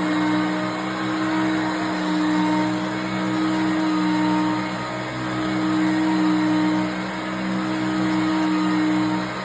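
1988 Hoover Concept One upright vacuum cleaner running, a steady motor drone over a hiss of suction. Its level swells and dips every couple of seconds.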